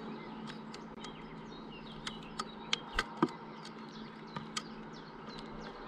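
European starling at a wooden bird feeder: scattered sharp ticks and taps as it lands and perches on the edge of the opening, with faint bird chirps and a steady low hum behind.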